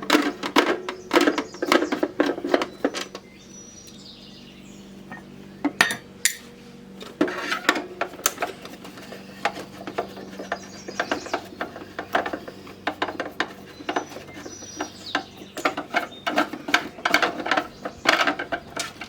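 Screwdriver and screws working on a plastic boombox case during disassembly: a run of sharp clicks, taps and light metallic clinks, with a quieter spell about three to seven seconds in.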